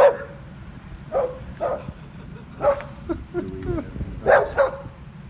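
Dogs barking in short, separate barks, about six in all, with a brief whine near the middle.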